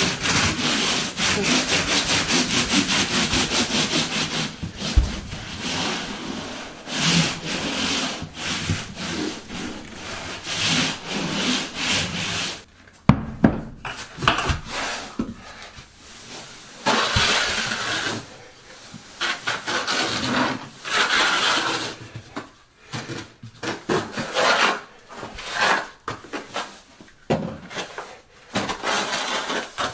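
A hand-held block rubbed quickly back and forth over Schluter-Ditra uncoupling membrane to press it into fresh thinset mortar. After a break near the middle, a notched steel trowel scrapes and spreads thinset over a plywood subfloor in repeated strokes.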